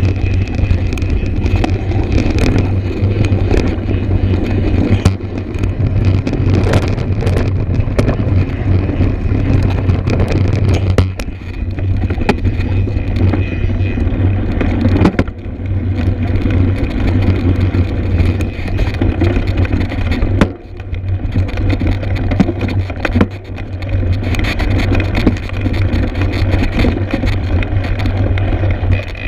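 Steady wind rumble on the microphone over a mountain bike riding a rocky trail, with scattered knocks and clicks from the tyres and bike over loose stones.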